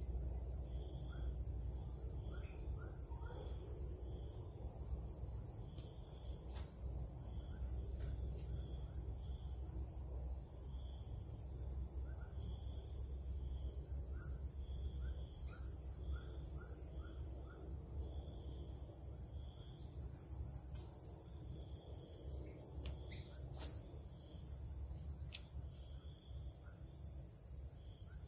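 Insects chirping and buzzing: a steady high drone with a chirp repeated about once a second over it, and a low steady rumble underneath. A few faint clicks come through.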